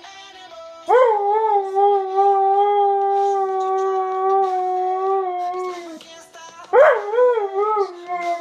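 Husky howling: a long howl that rises quickly about a second in and then holds steady for about five seconds, then a second howl near the end that wavers up and down before settling.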